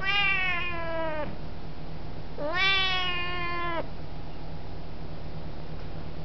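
Siamese cat giving two long, deep, loud meows: the first starts straight away and slides down in pitch, the second comes about two and a half seconds in, rising at its start and then holding.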